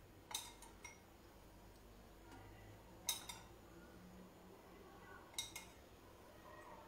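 A few faint clinks of a spoon against a small ceramic bowl as dressing is spooned out of it, spaced a second or two apart over near silence.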